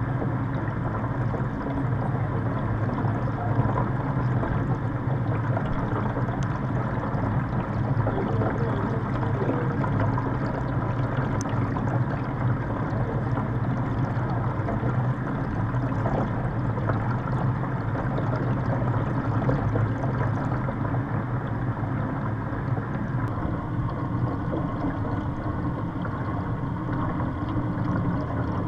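Steady rushing of water circulating through a salmon hatchery fry tank, with a constant low hum, heard underwater.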